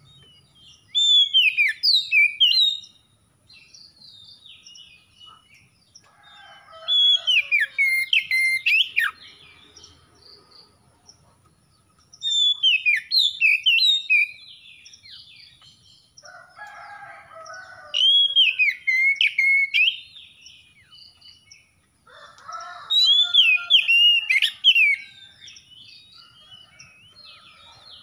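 Oriental magpie-robin singing: loud, clear whistled phrases with sliding notes, mixed with lower chattering notes. The song comes in five bursts of two to three seconds each, about every five seconds.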